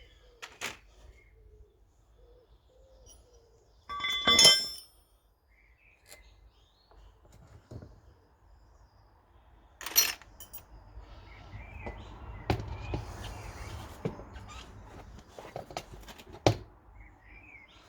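Clanks and knocks of a wheel being worked free and taken off. A loud ringing metal clang comes about four seconds in, a sharp knock near ten seconds, then a stretch of rustling and bumping with a few more knocks. Birds chirp faintly behind.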